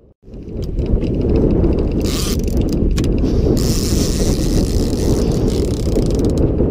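A boat fishing reel's ratchet clicker clicking and buzzing in spells as line is pulled off, the sign of a fish, likely a tope, taking the bait. Heavy wind buffets the microphone throughout, starting abruptly just after the start.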